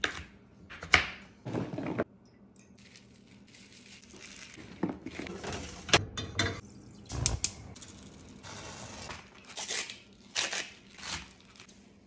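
A chef's knife chopping through squash and then kale onto a plastic cutting board: a string of sharp chops in the first couple of seconds and again near the end, with rustling and light clattering in between.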